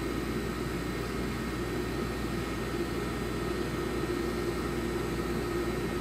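Walter Helitronic Mini Power CNC tool and cutter grinder moving its axes: a steady mechanical whir of the axis drives and way guarding, with a faint hum that grows more noticeable a few seconds in.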